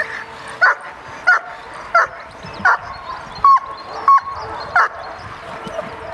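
Young German shepherd barking in a steady series of eight sharp barks, about one every two-thirds of a second, which stop about five seconds in. These are agitation barks at a decoy during protection training.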